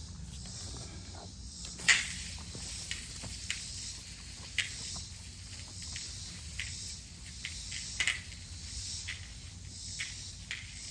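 Irregular scrapes and crunches of potatoes being dug out of garden soil, the sharpest about two seconds in and again about eight seconds in, over a steady high hiss.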